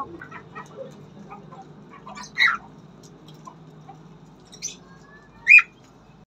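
Cockatiels calling: two short chirping calls, one about two and a half seconds in and a louder one near the end, over faint background bird chirps.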